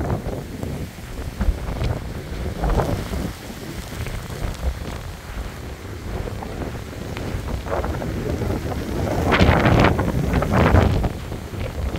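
Hurricane wind gusting hard against the phone's microphone, with rain falling. The wind is quieter through the first half, then gusts hardest about three-quarters of the way through.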